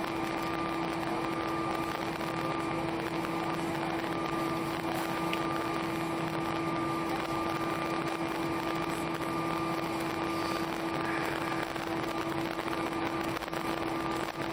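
Steady cabin noise of an Airbus A319 taxiing after landing: the engines at idle and the air conditioning blowing. It is an even hiss with a constant low hum and a fainter, higher steady whine.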